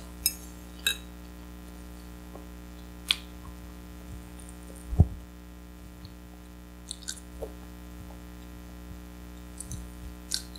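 Person chewing pasta close to a clip-on microphone, with a few light clicks of a fork against a ceramic bowl and one dull thump about five seconds in, over a steady electrical hum.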